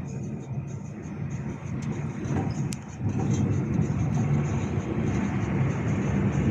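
Volvo B13R coach's inline-six diesel engine running steadily, getting louder about three seconds in.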